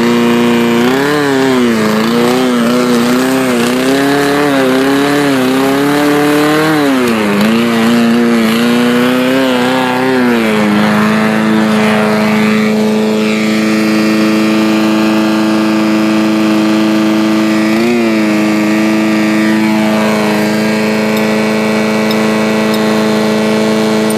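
Small engine of a Yard Works push lawnmower running while cutting long grass. For about the first ten seconds its pitch repeatedly sags and recovers as it takes load, then it settles to a steady run, with one brief dip later on.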